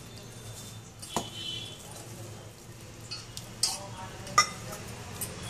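Hands mixing and kneading rice flour dough in a stainless steel bowl, with soft scraping and three sharp metallic clinks from the steel bowl and tumbler, one about a second in and two a little later.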